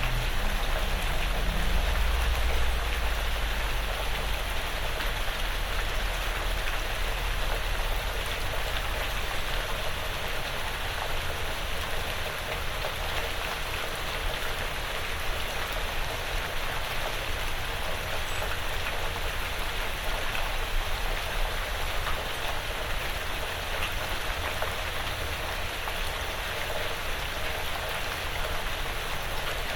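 Steady, gentle rain falling on a porch roof and the surrounding woods, an even hiss of drops with a low rumble underneath.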